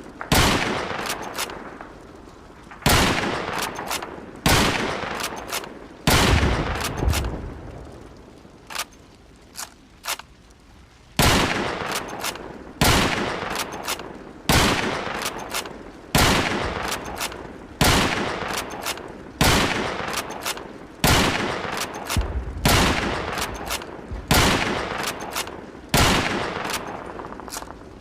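Lee-Enfield bolt-action rifle firing repeatedly, a shot about every one and a half seconds, each with a long echoing tail. A few shorter, quieter clicks fall between some of the shots.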